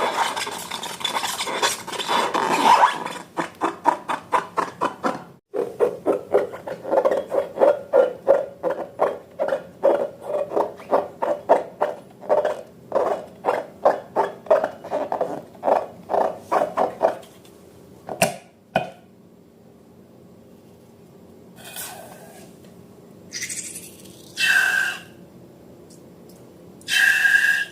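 Slime being mixed in a bowl: scraping at first, then a long run of short clinks and squelches about two to three a second. A few short, higher-pitched squeaks follow near the end.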